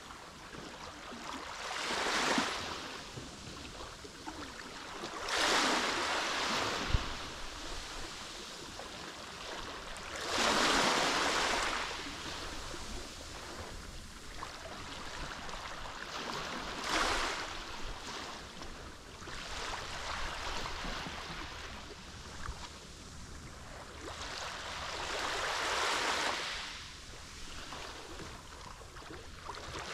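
Mediterranean waves breaking and washing onto the shore, swelling in about six surges with a softer hiss of water between them. A short thump about a quarter of the way in.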